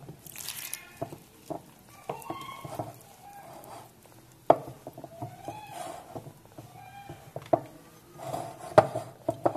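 A hand squeezing and mixing flour and warm water into dough in a glass bowl, with a few sharp knocks against the bowl, the loudest about halfway through and near the end. Chickens cluck in the background several times.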